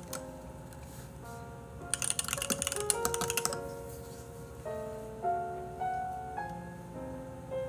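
A quick burst of computer-keyboard typing, many rapid clicks about two seconds in lasting roughly a second and a half, over background music of held single notes.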